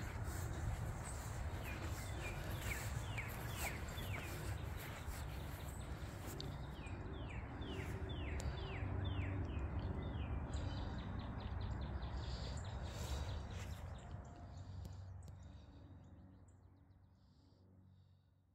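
Outdoor ambience: a steady low rumble, with a bird singing two runs of short, quick, falling notes, each run lasting a few seconds. The whole fades out near the end.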